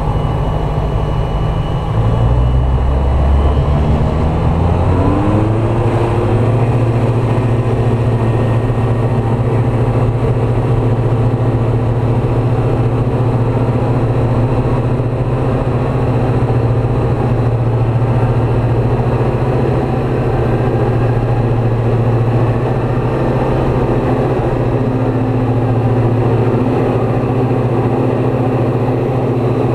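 Light aircraft's piston engine and propeller running. The engine note rises over the first few seconds as power comes up, then holds steady.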